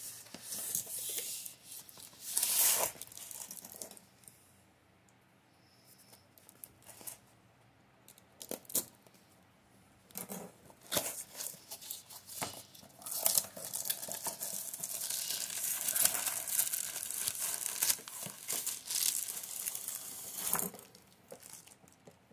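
A cardboard box being opened by hand: first bursts of cardboard and tape tearing, then a quiet pause with a few short knocks. This is followed by a long stretch of rustling and crinkling as the plastic-wrapped wooden shelves are pulled out of the box.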